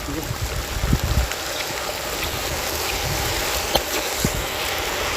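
Steady hiss of light rain falling, with scattered small clicks and knocks and a few low thumps about a second in.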